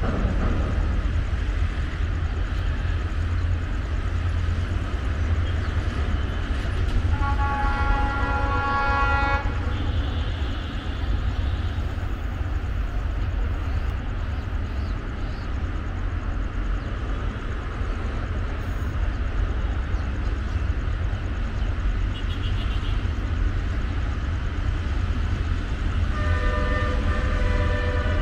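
Horn of an approaching diesel train sounding two long blasts, each a chord of several steady tones: one about seven seconds in lasting about two seconds, the second starting near the end. A steady low rumble runs underneath.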